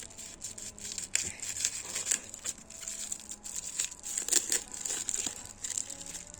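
Packaging being handled and unwrapped, crinkling and rustling in irregular crackles.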